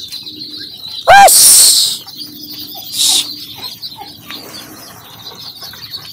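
A flock of ducklings peeping, a steady chorus of small high calls. About a second in there is one louder call and then a short rushing noise, and a second rushing noise comes about three seconds in.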